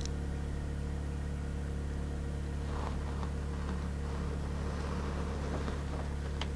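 Steady low mechanical hum made of several even tones, unchanging throughout, with a faint tick or two.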